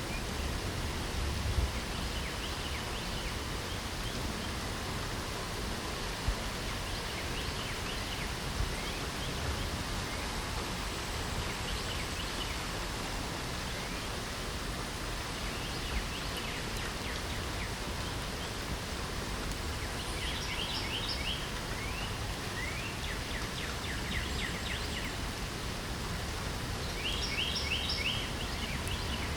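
Steady light rain falling, with birds singing over it: scattered chirps and several quick trills of short repeated notes, most of them in the second half.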